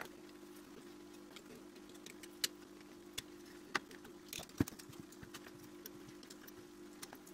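Light clicks and taps of a partly disassembled Canon A-1 35mm camera body being handled and turned over by hand. The loudest knock comes about four and a half seconds in, over a steady low hum.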